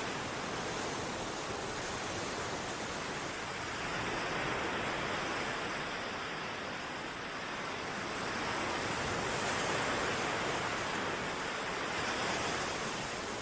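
Ocean waves washing onto a shore: a steady rushing hiss that swells and eases every few seconds.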